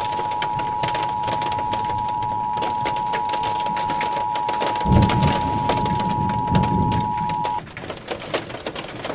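Emergency Alert System two-tone attention signal, a steady two-note tone that cuts off about seven and a half seconds in, over a steady hiss of rain. A clap of thunder about five seconds in rumbles low for a couple of seconds.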